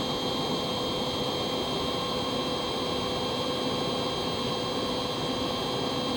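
Heat gun running steadily, a rushing hiss of blown air with a faint steady whine, heating solder-seal connector tubes while the solder ring melts into the wire conductors.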